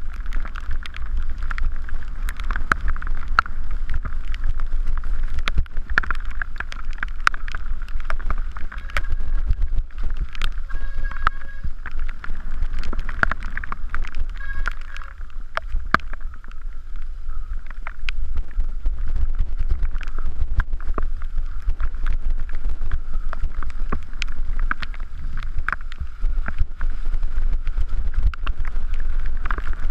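Mountain bike descending a rough, wet dirt trail, heard from a rider-mounted camera: steady wind buffeting the microphone, with constant rattling and knocking from the bike over the bumps.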